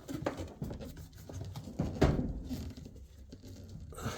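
Hands working washer parts during reassembly: irregular rubbing and scraping of plastic and metal, with a sharp knock about two seconds in.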